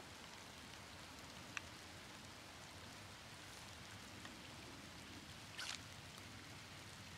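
Faint steady patter of rain, with a few light drop ticks and a brief louder patch of hiss about five and a half seconds in.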